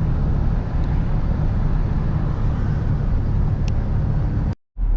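Steady road and engine rumble of a vehicle driving, heaviest in the low end, which breaks off abruptly near the end.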